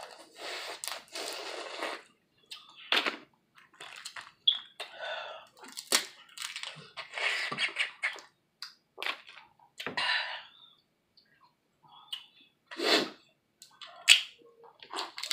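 Boiled crawfish being eaten close to the microphone: shells cracking, the heads sucked, and chewing, heard as an irregular string of sharp clicks and wet smacks.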